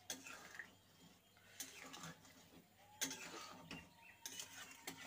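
Metal spatula scraping and knocking against a metal kadai while stirring a thin curry: a few short, quiet scrapes and clicks, with a quick cluster near the end.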